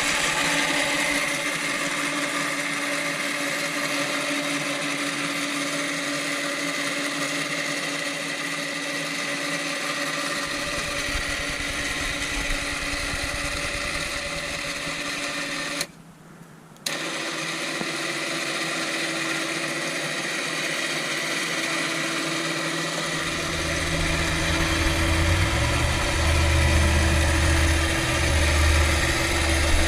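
Electric winch motor on a Massimo 500 MSU side-by-side, run by its wireless remote, with a steady whine as it spools the cable. Just past halfway it stops for about a second, then runs again at a slightly higher pitch. A lower rumble joins in near the end.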